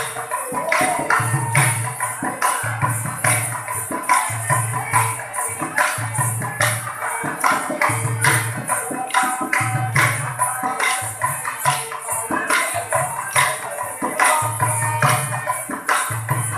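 Live folk music with fast rhythmic percussion: sharp clacks and jingles over a low beat that comes about once a second.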